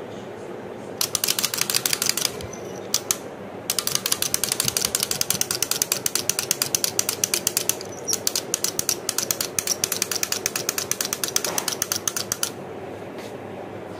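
Plastic wind-up toy bird's clockwork mechanism clicking rapidly as the toy walks. There is a short run about a second in, then a longer run of several seconds that stops near the end.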